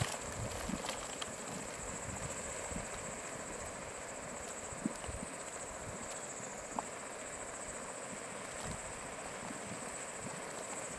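Boiling water churning and bubbling in a hot-spring vent, with irregular low gurgles and pops and a couple of sharper pops.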